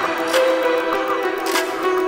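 Background music: a melody of held notes that change every half second or so, with a couple of sharp hits.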